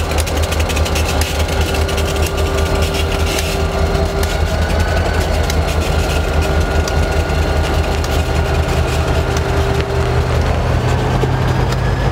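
Diesel freight locomotives, Ann Arbor Railroad 1337 leading 2370, pulling a train past at close range: a steady heavy engine throb with a fast rattle over it, strongest in the first few seconds.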